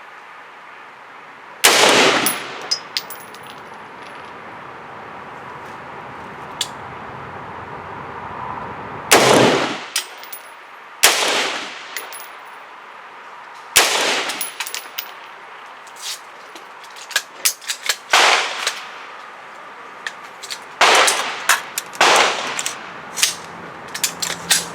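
AR-15 rifle fired in single shots, about seven loud ones spaced irregularly a few seconds apart, each with a ringing tail, with fainter sharp cracks in between. It is being test-fired after a fix for under-gassing, a crimped gas tube that kept it from cycling fully.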